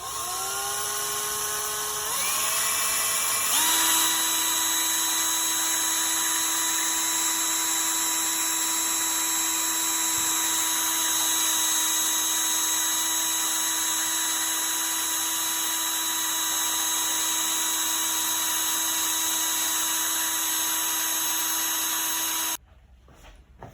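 Power drill running steadily to stir pigmented epoxy. It spins up at the start, changes speed a couple of times in the first few seconds, holds a steady whine, then stops suddenly near the end.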